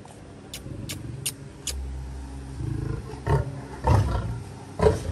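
Lioness growling: a low rumbling from about two seconds in that rises to three loud roaring outbursts near the end. A few sharp clicks come before it.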